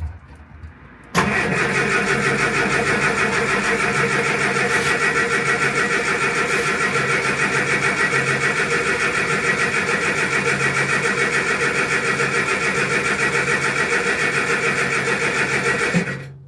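Austin Allegro's engine being cranked over on the starter motor without firing, a steady, evenly pulsing churn that starts about a second in and stops near the end. The engine won't catch because the fuel system is dry after the tank and fuel lines were replaced, and fuel still has to be drawn through from the tank.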